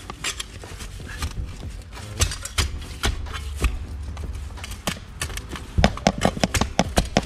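Gloved hands digging caked mud and debris out of a car's floorpan: scraping with many small knocks and clicks, and a quick run of sharper knocks near the end.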